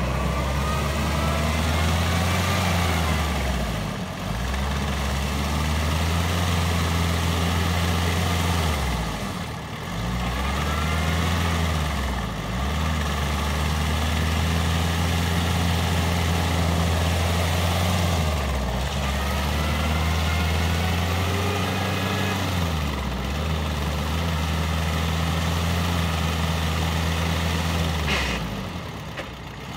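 Stock Jeep Cherokee XJ's 2.5 turbo diesel pulling steadily as it drives through a mud hole, its engine note dipping briefly every few seconds and picking up again.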